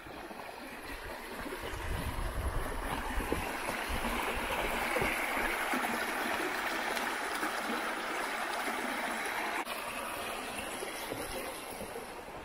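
A stream running, a steady rush of water that grows louder a couple of seconds in and drops off suddenly near the end.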